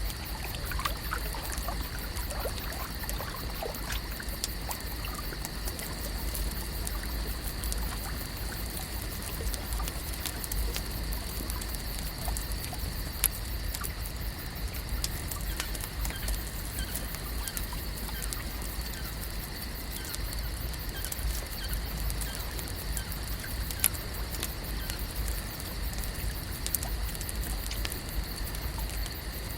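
Lake ambience: water gently trickling and lapping, with small scattered clicks, over a steady high-pitched hum and a low rumble.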